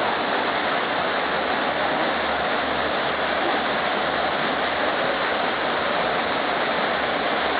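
A waterfall's water rushing steadily, an even, unbroken noise of falling water.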